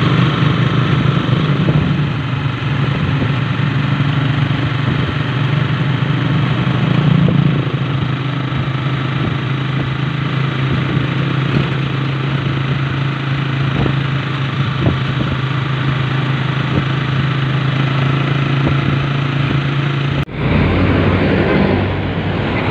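Motorcycle engine running steadily while riding on a tricycle. About 20 s in it cuts suddenly to roadside traffic noise.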